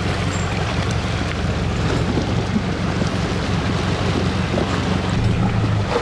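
Toyota Prado's engine running low and steady as the 4x4 crosses a river, over a continuous wash of moving and splashing water. The engine note strengthens briefly near the end.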